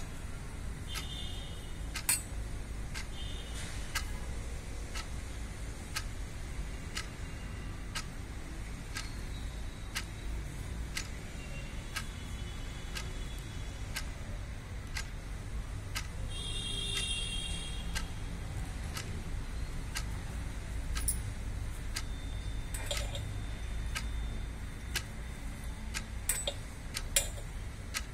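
A clock ticking about once a second, over a steady low hum, with a few brief high chirps.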